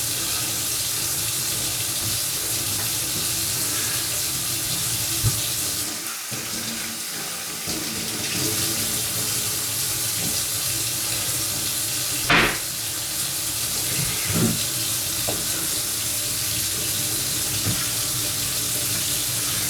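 Water running steadily from a kitchen tap into a sink, a hiss that eases off briefly about a third of the way through, with a couple of short knocks near the middle.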